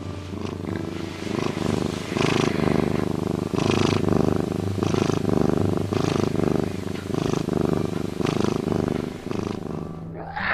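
Lynx purring: a continuous low rumbling purr that swells and eases with each breath, roughly once a second.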